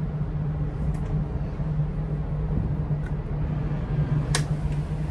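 Gasoline inboard engine of a Meridian 341 motor yacht idling at the dock, a steady low hum. A single sharp click about four seconds in.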